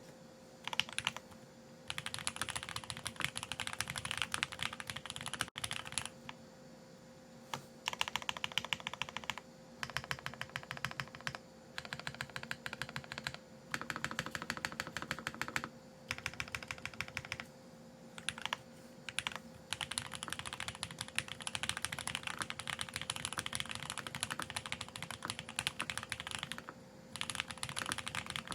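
Typing on a lubed custom mechanical keyboard, a Geonworks F1-8X with TTC Speed Silver v2 linear switches, aluminium plate and ABS keycaps: fast runs of keystrokes in bursts of a few seconds, broken by short pauses.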